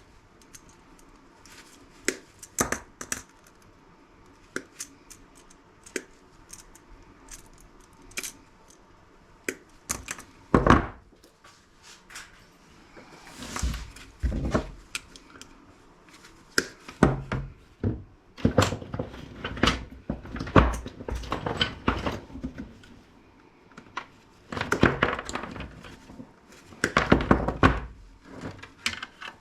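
Hand-dismantling scrap items: scattered sharp clicks and knocks of parts and tools being handled, with a louder knock about ten seconds in and denser clattering in the second half.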